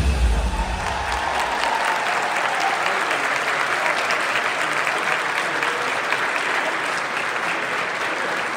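Large audience applauding steadily, with the bass of the ending music dying away within the first second and a half.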